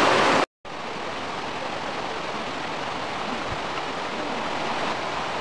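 Whitewater of a fast stream rushing over rocks, loud and close. About half a second in it cuts off abruptly, then a quieter, steady rush of running water carries on.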